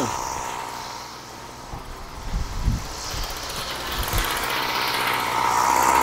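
Flymo Maxi Trim strimmer's two-stroke engine idling off choke while still cold, just after its carburettor was cleaned. It falters and goes quieter for a few seconds with a few low thuds, then picks back up to a steady idle near the end.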